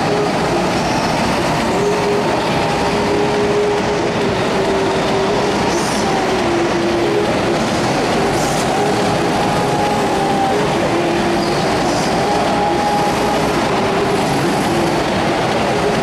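Go-kart engines running around an indoor track, a steady loud drone with a held engine note that steps up and down in pitch as the karts speed up and slow.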